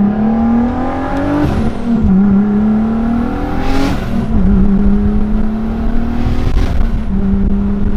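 Turbocharged VR6 engine of a MK4 Golf GTI with a Pulsar G30-900 turbo, accelerating hard through the gears. The engine note climbs and drops back at each of three shifts, with a short burst of hiss at each shift.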